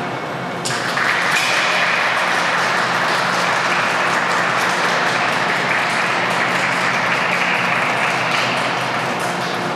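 Audience applauding in a large ice rink, breaking out suddenly about a second in and holding steady.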